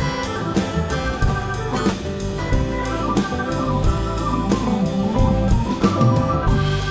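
Live band playing an instrumental break with guitar over a drum kit, no singing.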